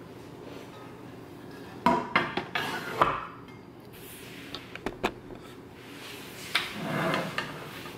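Cookware pans knocking and clattering as they are set into a pan organizer rack on a wooden countertop. There is a cluster of knocks about two seconds in, a few more around five seconds, and a short rubbing scrape near seven seconds.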